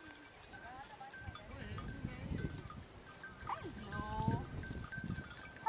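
Animals bleating: a few short wavering calls, clearest about two-thirds of the way in, over a faint steady high tone.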